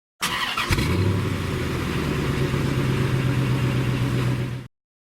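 A vehicle engine starting, then running steadily at idle; the sound cuts off suddenly near the end.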